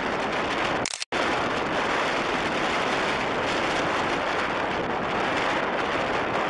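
Storm wind blowing hard across the microphone: a steady, loud rushing noise that drops out for a moment about a second in.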